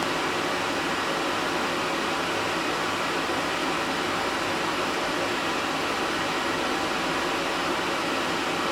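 A steady, even hiss like a fan or air conditioner running, with no separate sounds on top.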